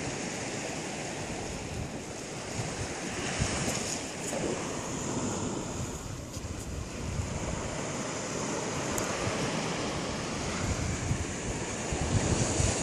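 Sea surf washing steadily on the shore, with wind buffeting the microphone in gusts that get stronger near the end.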